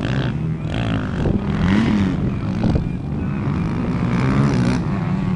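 Motocross dirt bike engines revving, their pitch rising and falling with the throttle as the bikes race around the track.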